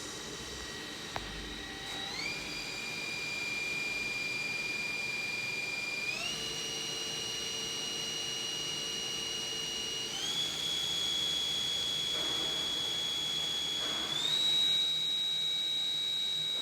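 Spindle of a VMC1160 vertical machining center running with a high, steady whine that steps up in pitch four times, about every four seconds, as the spindle speed is raised in stages during a spindle speed test.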